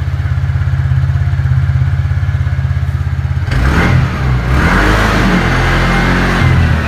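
Single-cylinder motorcycle engine running at a steady, fast-pulsing idle, then revved up and down from about halfway through.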